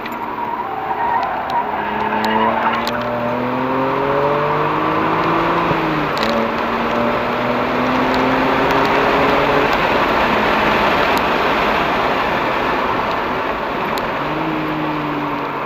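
BMW 335i's N54 twin-turbo straight-six with a Remus exhaust, heard from inside the cabin, accelerating under load with its pitch climbing in several stages, over heavy road and wind noise.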